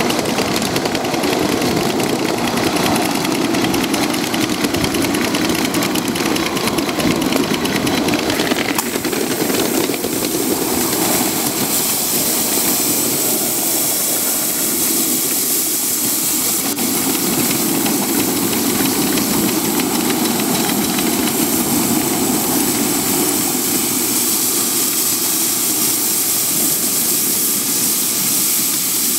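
Ride-on live-steam model of East Tennessee & Western North Carolina No. 12 "Tweetsie" running along the track: rapid exhaust chuffing and the clatter of wheels on rail. About nine seconds in, a steady steam hiss joins.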